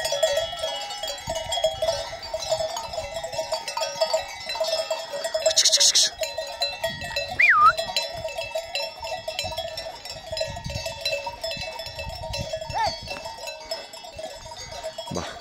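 Bells on a grazing flock of sheep clanking and jingling continuously, with a short high call about halfway through.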